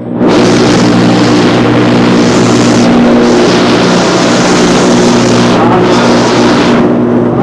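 Construction buck hoist running: the cage's rack-and-pinion drive gives a loud, steady mechanical drone with a constant humming pitch. It cuts in suddenly just after the start as the hoist gets going.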